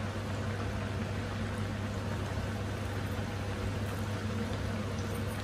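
Breaded chicken strips deep-frying in hot oil in a wok on medium gas: a steady sizzle and bubbling, over a steady low hum.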